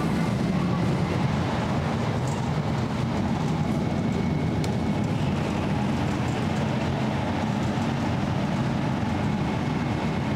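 A 500-series Shinkansen running at speed, heard from inside the carriage: a steady rumble and rush, with a faint high whine through the first half.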